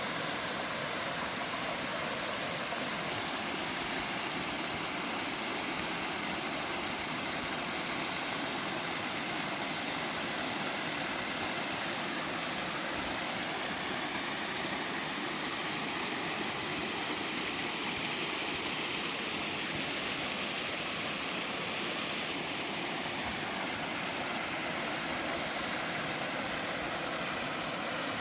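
Waterfall pouring steadily into a mountain-stream pool, a constant rushing hiss of falling water.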